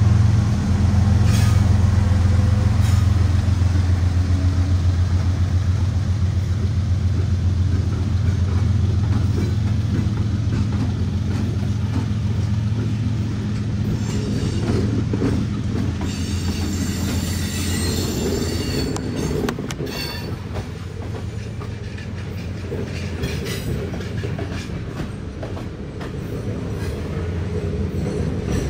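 GE ES44AH diesel-electric freight locomotives passing close by, their engines a steady low drone. As the drone fades after about twelve seconds, the clatter of freight car wheels over the rails takes over, with wheel squeal about halfway through.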